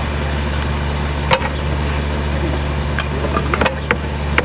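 Hammer strikes on the roof as the ridge vent's bottom flange is nailed down: a single knock about a second in, then a run of quick knocks near the end, over a steady low mechanical hum.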